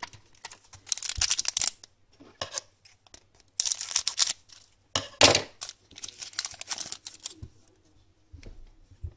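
A foil trading-card pack being torn open, its wrapper crinkling in several short bursts.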